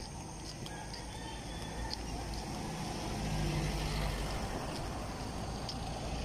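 A motor vehicle's engine running close by, growing louder about halfway through, over a steady low rumble.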